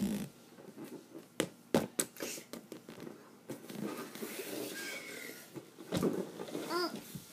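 Scattered knocks and thumps with rustling as an inflatable plastic ball is tossed and handled, and a short rising-and-falling squeak near the end.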